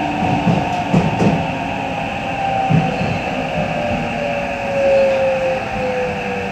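Tokyo Metro 8000 series subway train running, its traction motor whine slowly falling in pitch as the train slows. Under it is a steady rumble of wheels on rail, with a few knocks from the track about a second in and near three seconds.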